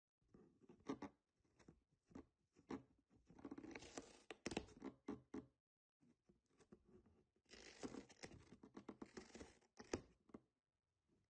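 A cat biting and chewing the edge of a cardboard box: irregular crunching and tearing of cardboard in two spells, with a short pause about halfway through.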